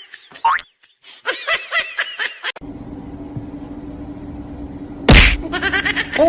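Bouncy background music breaks off into a steady low hum, and about five seconds in comes a single loud slap or smack, the loudest sound here, before the music returns.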